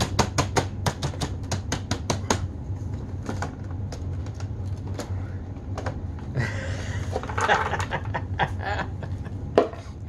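Plastic dust cup of a Bissell PowerForce Compact bagless vacuum being handled and detached: a quick run of sharp clicks and rattles, then popped popcorn rustling as it is poured out, and one sharp click near the end. The vacuum motor is off.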